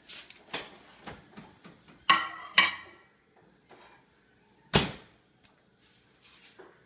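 Built-in microwave oven being loaded: small handling clicks and two ringing clacks as the door is opened and the sandwich put inside, then the door shut with one sharp slam a little before five seconds in.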